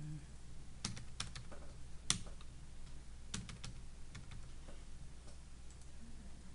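Computer keyboard typing: about a dozen irregular key clicks, the loudest about two seconds in, as figures are entered into a calculator.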